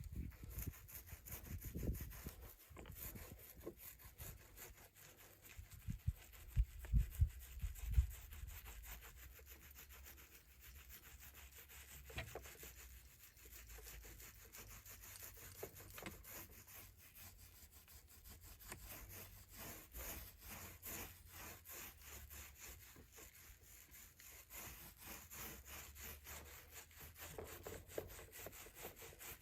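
Fiberglass resin being spread over a drum shell: continuous quick rubbing strokes, with a few low thumps about six to eight seconds in.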